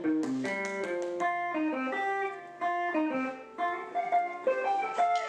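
Instrumental band music from saxophone, guitar, bass and drums: a quick melodic line of single notes, guitar prominent, over a held bass note.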